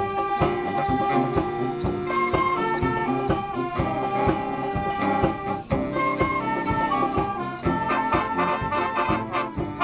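Background music with brass melody lines over a steady beat.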